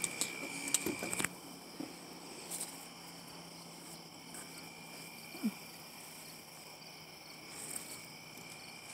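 An evening chorus of crickets trilling steadily at a high pitch. There are a few light clicks and knocks in the first second or so, and one short low sound about five and a half seconds in.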